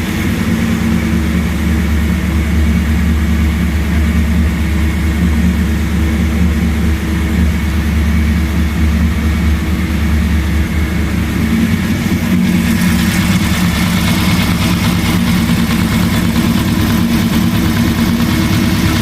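1914cc air-cooled flat-four with dual Weber 44 IDF carburettors, ported heads and an A1 Sidewinder exhaust, running steadily at idle. About twelve seconds in, the exhaust note turns brighter and less bassy.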